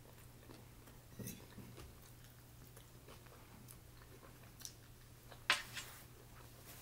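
Faint chewing of a mouthful of shrimp rice noodles, with soft mouth clicks. About five and a half seconds in comes a sharp clink, then a smaller one, as a metal fork is set down on the plate.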